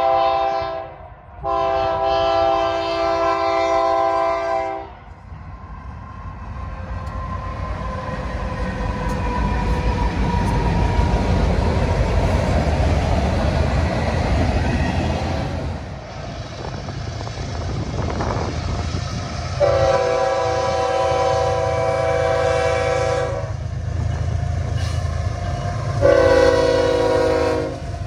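Diesel freight locomotive air horn sounding a chord: a short end of one blast, then a long blast. Then freight cars rumble past with wheel clatter for about fifteen seconds. Near the end the horn sounds again, a long blast followed by a shorter one.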